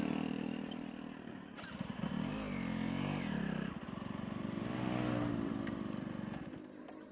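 Motorbike engines passing, their pitch rising and falling twice, once about two seconds in and again around five seconds in.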